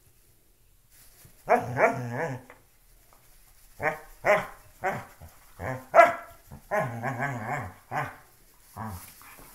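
Dog making play sounds while it worries at a shoe: a string of growls and short barks that starts about a second and a half in, with a longer rumbling growl near the end.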